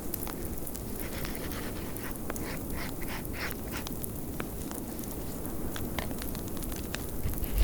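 Blizzard wind blowing steadily under a crackling fireplace, with sharp pops scattered throughout. About two seconds in there is a brief run of rhythmic, breathy puffs, roughly four a second.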